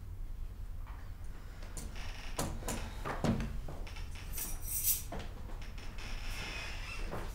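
Quiet room tone with a few soft knocks and rustles from a frosted-glass double door being handled, about two to five seconds in.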